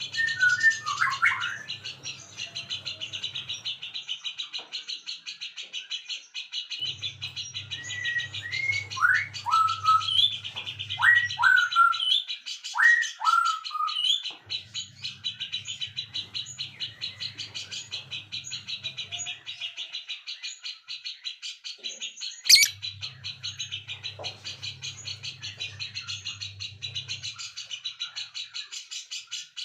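Birdsong: a dense, steady high chirping chorus, with a run of loud, clear whistled notes that slide downward about a third of the way in. A low hum comes and goes every few seconds, and there is one sharp click about three quarters of the way through.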